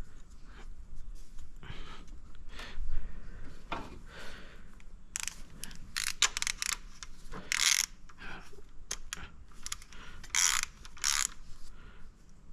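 Ratchet wrench clicking in irregular short bursts while tightening the reverse-threaded bolt on a tensioner pulley.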